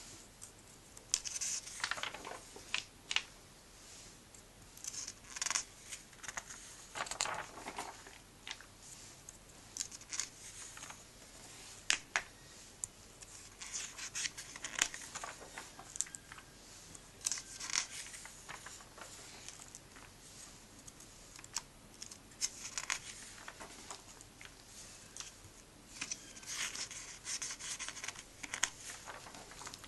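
Pages of a comic book being turned by hand, the paper rustling and crinkling in short bursts every few seconds, with a few sharp flicks as pages snap over.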